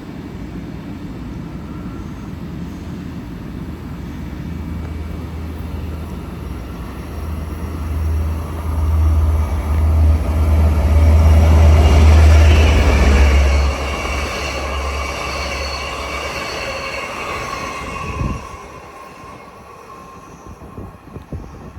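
Long Island Rail Road train passing: a low rumble builds to its loudest about halfway through, then high ringing tones from the wheels on the rails take over and the sound falls away after about 18 seconds.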